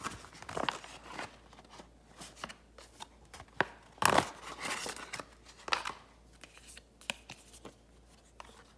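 Handling noise from a dog toy and its packaging: irregular rustles, clicks and scrapes, the loudest cluster about four seconds in.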